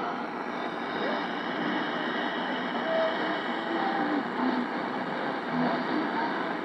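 Shortwave static and hiss from a Yaesu FRG-7 communications receiver tuned to Radio Vanuatu on 9960 kHz. The station's audio comes through only as brief faint fragments of tone under the steady noise, a weak signal at the edge of reception.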